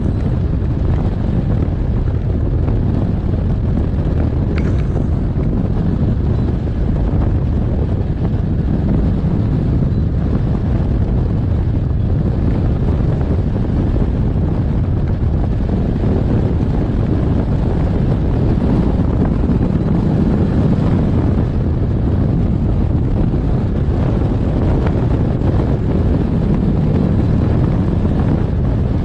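Loud, steady rush of wind over the microphone of a camera mounted on a hang glider in flight.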